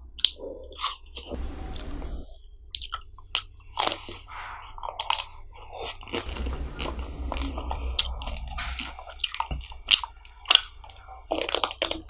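Close-miked biting and chewing of frozen ice cream bars: many sharp, irregular crunches as the hard chocolate coating and frozen ice cream break, with wet chewing between.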